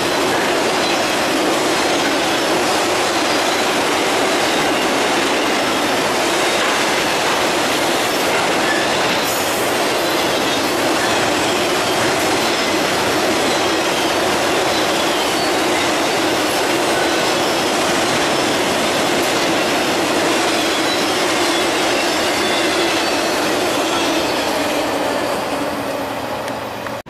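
Freight train of enclosed autorack cars rolling past close by: steady, loud wheel-on-rail noise that fades off near the end as the last car goes by.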